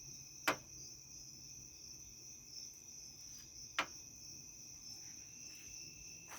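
Crickets trilling steadily, with two sharp clicks, about half a second in and near four seconds, from a magnet snapping onto metal.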